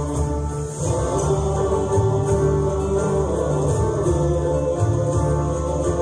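Bulgarian folk choir singing on stage, long held notes over steady low tones, with a new phrase starting about a second in.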